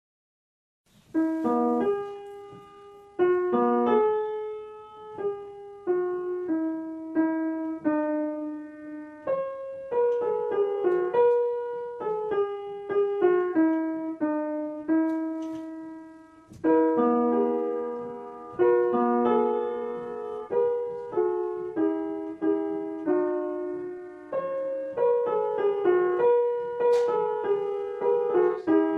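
Piano music: a melody of struck notes, singly and in small chords, each ringing and fading, starting about a second in.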